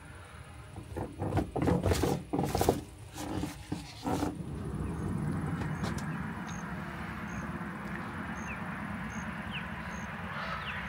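A few seconds of irregular rustling and knocks, then a steady hum of distant road traffic with birds chirping and a small high peep repeating about once a second.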